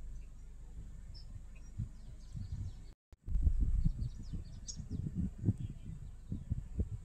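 Outdoor ambience: scattered faint bird chirps over a low, irregular rumble, with an abrupt edit cut about three seconds in.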